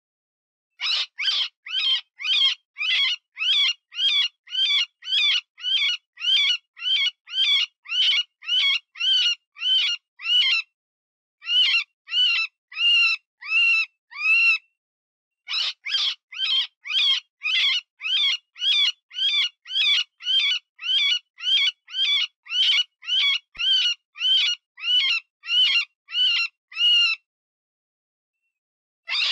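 Cottontail rabbit distress call: rapid, high-pitched squealing cries of a wounded rabbit, about two a second, in three runs broken by brief pauses. It is the kind of call used to lure predators.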